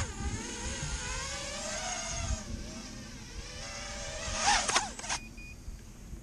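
Motors and propellers of an XHover Stingy micro drone, a steady high whine drifting slowly in pitch. About four and a half seconds in it rises and wavers briefly, then cuts off suddenly about five seconds in.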